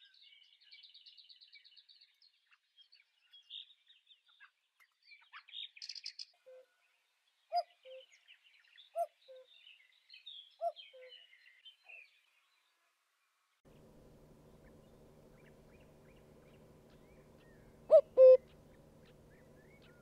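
Common cuckoo calling its two-note falling "cuckoo" three times, about a second and a half apart, over the high chirps of small birds. Later, over a steady low hum, one louder cuckoo call comes near the end.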